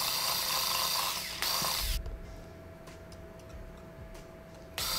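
Electric hand mixer with a whisk beater running, whipping eggs in a bowl with a steady motor whine. It cuts out about two seconds in; a quieter stretch with faint clicks and low thumps follows, and the mixer starts again near the end.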